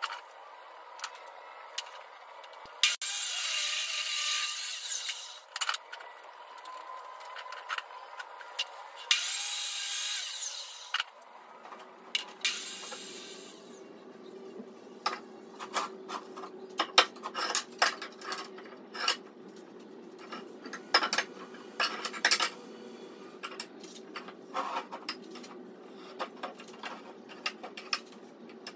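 A power saw cutting wood in three short runs, then wooden boards and metal bar clamps knocking and clacking as the boards are laid out and clamped for a glue-up.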